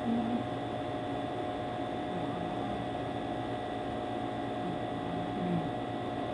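A steady electrical hum with hiss, unchanging throughout, and a few faint, brief voice sounds over it.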